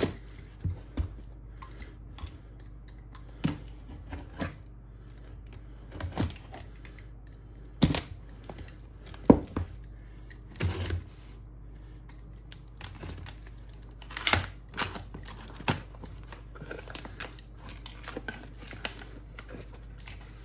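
Irregular clicks, taps and knocks of cardboard boxes and packaging being handled and opened, the loudest knock about nine seconds in, over a steady low hum.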